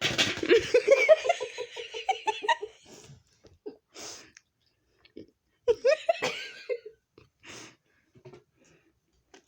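A person laughing: a run of quick giggles for about two and a half seconds, a breath a little later, then another short burst of laughter around six seconds in.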